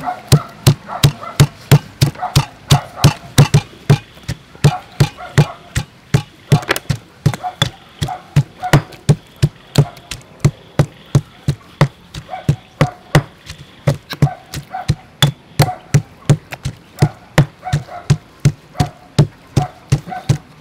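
Stone pestle pounding garlic and chili in a stone mortar: steady, even thuds at about two or three strokes a second.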